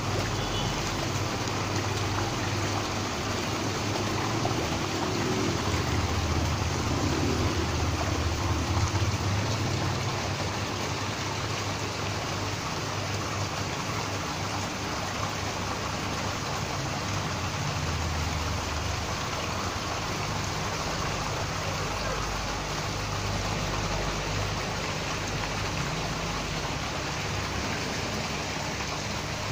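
Steady rush of moving, splashing water in a koi holding tank, with a low rumble underneath that swells and fades.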